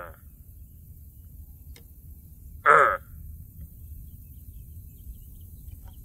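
A man's Sasquatch call made through a cupped hand. A long falling howl fades out at the very start, then one short, loud whoop falls in pitch about two and a half seconds in, over a low steady rumble of wind.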